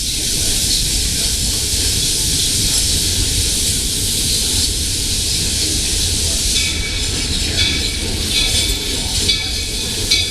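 Steam locomotive of the Walt Disney World Railroad on the move: a loud, steady hiss of steam over the low rumble of the train, with thin high squealing tones joining about two-thirds of the way through.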